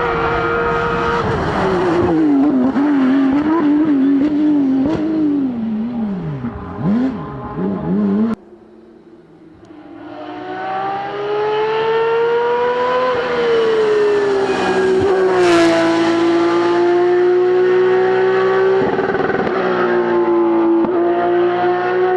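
Porsche 911 (992) Rally GT's flat-six engine driven hard on a rally stage, revs rising and falling quickly through gear changes and lifts. About 8 s in the sound cuts off abruptly, then the engine builds again, and its pitch dips as the car passes close before holding at high revs.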